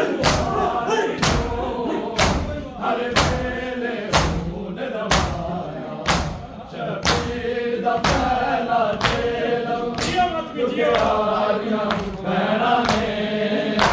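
Men's voices chanting a Punjabi noha (mourning lament) together, with the mourners' open-hand strikes on their chests (matam) landing in unison about once a second, in a steady rhythm.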